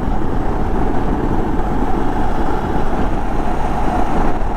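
Motorcycle riding at a steady speed: engine running with steady road and wind noise, no change in pace.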